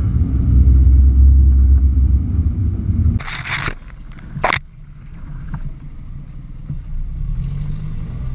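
Suzuki Samurai engine running steadily with a loud low rumble while crawling off-road, then cutting abruptly to a much quieter rumble about three seconds in. Two short scraping rushes, a second or so apart, come just after the change: brush and leaves rubbing against the camera.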